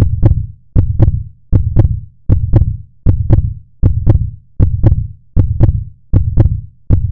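Steady outro beat: a deep thump with a sharp click on top about every three-quarters of a second, evenly spaced like a heartbeat, about ten in all.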